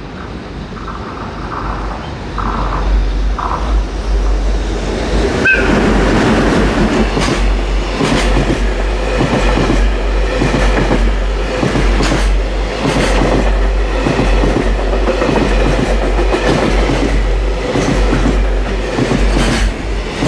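JR Freight EH500 electric locomotive approaching and passing at speed with a long container freight train. The sound grows over the first few seconds into a steady loud rumble of the wagons going by, with rapid clickety-clack of the wheels over rail joints.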